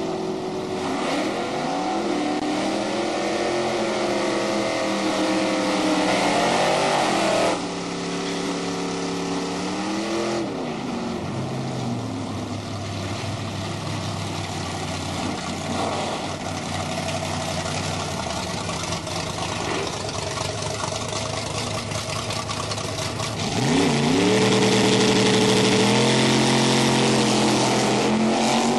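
Drag racing car engines revving in rising and falling sweeps at the starting line, then running hard down the strip. The revs climb loudly again about three-quarters of the way through.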